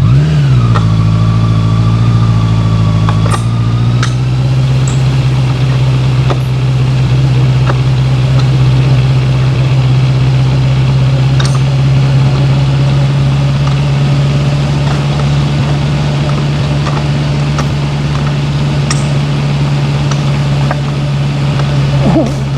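Honda CB650F's inline-four engine running steadily, its pitch rising at the start and stepping to a new steady note about three seconds in.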